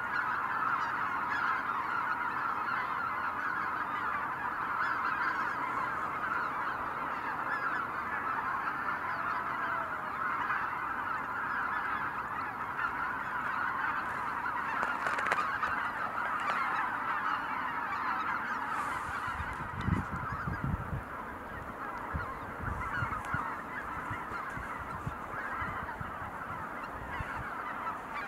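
A large flock of greater white-fronted geese calling together in a dense, unbroken chorus of honks. In the second half there are several low thumps.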